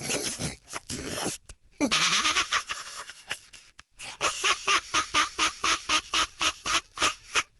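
A cartoonish trickster cackling laugh. It opens with breathy, wheezing stretches, then goes into a long run of rapid "ha" pulses, about five a second, from about four seconds in.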